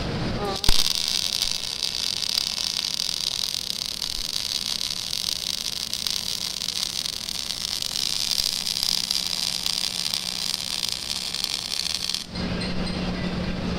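MIG (gas metal arc) welding arc running a bead: a steady, crackling sizzle that strikes with a sharp crack just under a second in and cuts off abruptly about twelve seconds in when the trigger is released. A steady low hum carries on after it.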